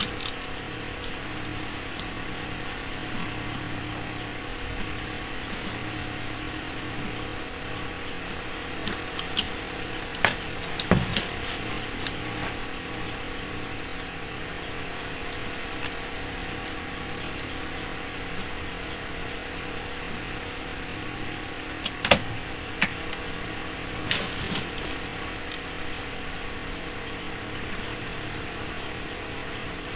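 Steady mechanical hum with a faint high whine over it. Scattered light clicks and taps come about ten seconds in and again a little past the twenty-second mark.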